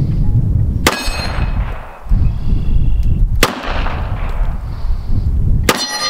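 Three shots from a Springfield 1911 .45 ACP pistol, about a second in, midway and near the end. The first and last are each followed by the ring of a struck steel target, while the middle shot brings no clear ring.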